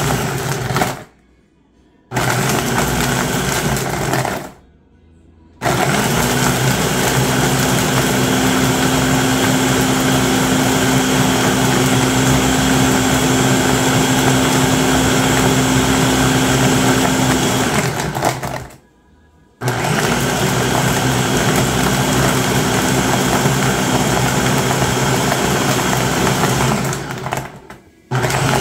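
Ninja Auto IQ blender running its automatic Smoothie program on fruit, ice and milk: the motor whirs with a steady hum, starting and stopping in a set pattern. Two short runs of a second or two come first, then a long run of about twelve seconds, a one-second pause, another run of about seven seconds, and a brief stop just before the end.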